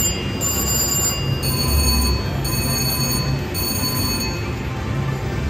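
Bourbon Street Easy Wilds three-reel slot machine spinning its reels: high electronic chime tones repeat about once a second and stop a little after four seconds in, over a steady din of casino noise.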